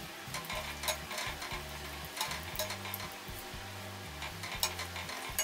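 Oil sizzling as potato bondas deep-fry in a kadai, with a wire-mesh skimmer clicking against the pan a handful of times as they are stirred and turned. Soft background music runs underneath.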